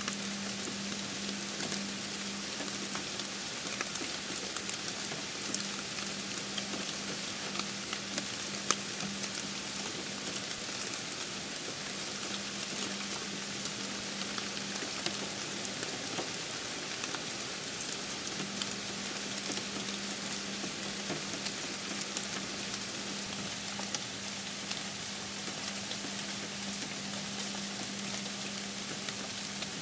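Steady rain: an even hiss dotted with many small drop ticks. A low steady hum runs underneath and drops out for a moment about halfway through.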